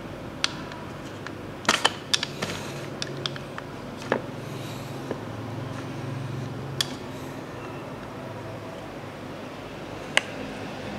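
Plastic parts of a Play-Doh ice cream maker toy being handled: scattered sharp clicks and taps, a quick cluster about two seconds in and single ones later, over a steady low hum.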